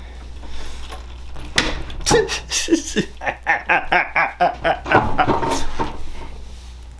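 A man's voice in loud, rapidly repeated outbursts, about three to four a second, from about a second and a half in until about five seconds in, then fading.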